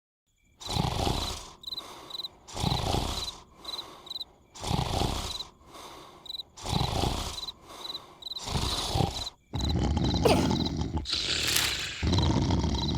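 Cartoon snoring: a loud, rough snore about every two seconds, each followed by a softer breath out, over steady cricket chirps. From about ten seconds in a louder, longer rough noise takes over.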